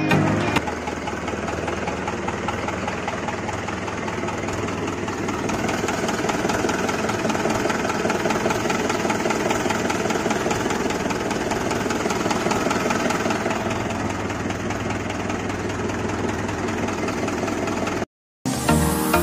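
Small electric gear motor of a DIY toy tractor running steadily as the tractor drives, a dense rapid whirring rattle; it cuts off suddenly near the end.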